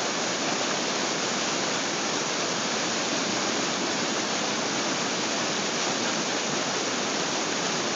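Flash-flood water rushing steadily down a newly formed channel of rapids, an even, unbroken rush.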